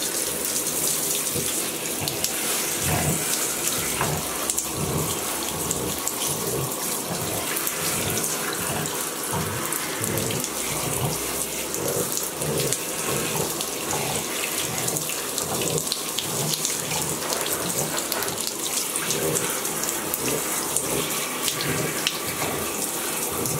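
Handheld shower sprayer running steadily in a bathtub, water spraying over a wet dog being rinsed. The spray makes an even hiss with uneven splashing underneath.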